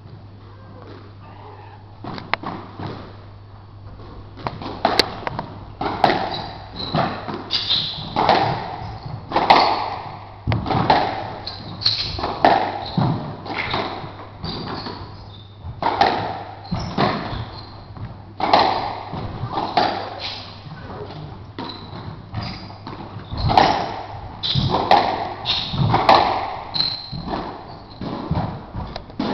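Squash rally: the ball is struck by rackets and smacks off the court walls, a sharp knock every second or so starting about two seconds in and running until near the end.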